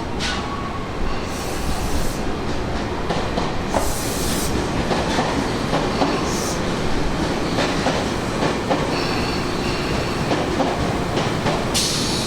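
Electric commuter train running along the platform, with a steady rumble and wheels clattering over the rail joints. There are short bursts of high hiss, and a high squeal of several tones comes in over the last few seconds.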